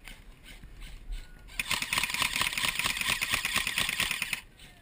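An airsoft rifle firing a long full-auto burst of rapid, even clicks. It starts about a second and a half in, lasts about three seconds and cuts off sharply.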